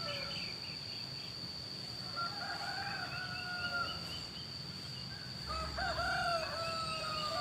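Roosters crowing one after another: a drawn-out crow about two seconds in and another, with more than one voice overlapping, about five and a half seconds in. A steady high-pitched tone hangs underneath.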